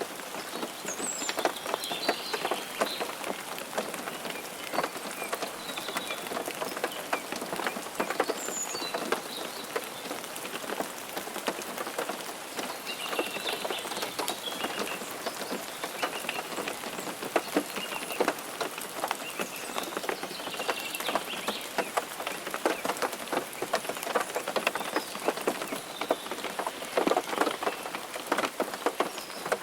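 Steady rain falling, with many individual drops pattering close by on a surface. Faint short high chirps come through now and then.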